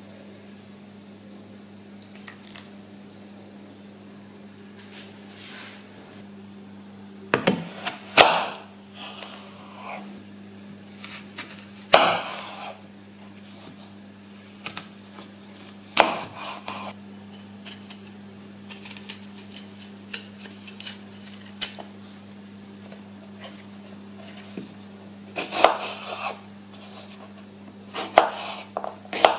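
Chef's knife cutting a green apple on a bamboo cutting board: scattered sharp knocks as the blade meets the board, a few seconds apart, with a quicker run of cuts near the end. A steady low hum lies underneath.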